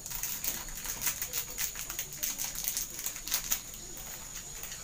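Small plastic tackle packet crinkling and tiny metal split rings clicking as fingers pick through them, a quick irregular patter of light clicks that thins out near the end.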